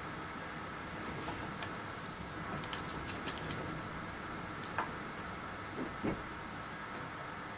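Small light clicks and taps of thin hook-up wire and a screw-terminal block being handled and fitted, a few scattered and a quick cluster of three about three seconds in, then two soft knocks near the end. A steady faint hum runs underneath.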